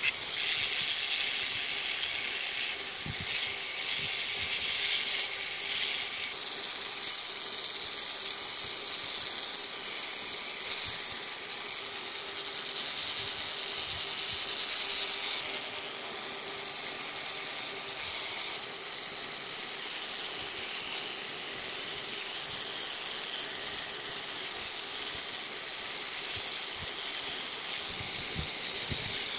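Handheld rotary micro-motor tool with a small burr bit grinding detail into carved wood: a steady high hiss that brightens and fades as the bit presses in and lifts off, over a faint steady motor hum.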